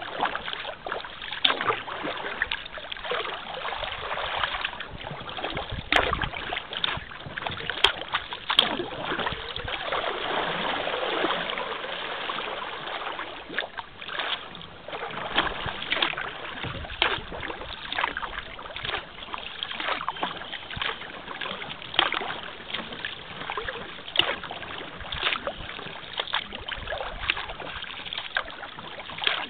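Kayak paddling on calm river water: the paddle blades dip and splash, with water running off them, in repeated irregular splashes.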